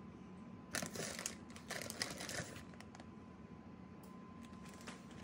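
Shredded cheese being grabbed by hand and sprinkled over a lasagna: short spells of rustling and crinkling, two in the first half and a brief one near the end, with a faint steady tone underneath.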